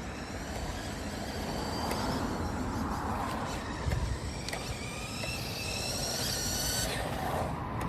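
Electric motor of a remote-control truck whining as it drives, its pitch gliding up and down with speed, over a steady rushing noise.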